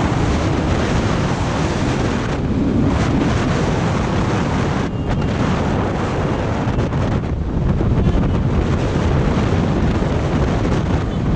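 Heavy, steady wind buffeting on the camera microphone of a motorcycle riding at speed, with the bike's engine and road noise underneath.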